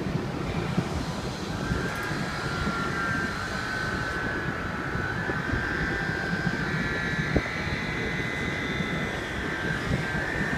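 Robotic welding cell running: a steady crackling arc noise, with a high whine that sets in about a second and a half in and holds.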